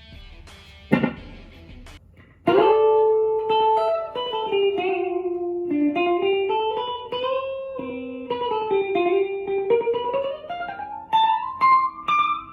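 Flight Centurion electric tenor ukulele played through an amplifier's clean channel: a single-note melody picked note by note, first stepping downward, then climbing higher near the end. A short sharp hit sounds about a second before the melody starts.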